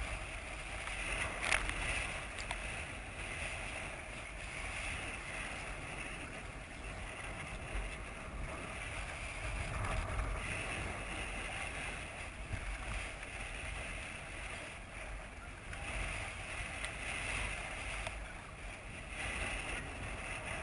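Water lapping and splashing around a kayak, with wind buffeting, heard muffled through a GoPro's waterproof housing; a brief knock about a second and a half in.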